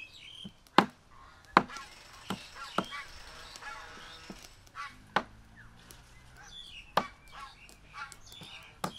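A cleaver chopping raw chicken feet on a thick wooden chopping block: about eight sharp chops at uneven intervals.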